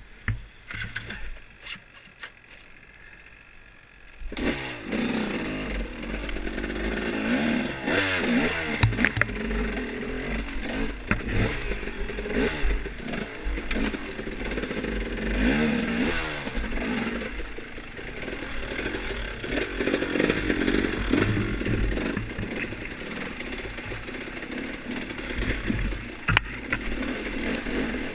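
Off-road motorcycle engine, low for the first few seconds, then loud from about four seconds in, revving up and down again and again as the bike is ridden over rough trail, with clatter from the bike.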